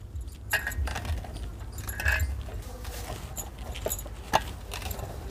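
Hands kneading a stiff dough in a large brass parat: soft knocks of the dough and fists on the brass, with light metallic clinks from the bangles. A sharper knock comes about four seconds in.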